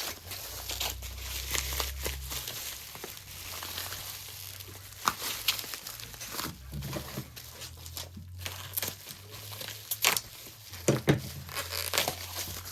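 Packing paper crumpling, crinkling and tearing as it is pulled out of a box, with a few sharper knocks from handling.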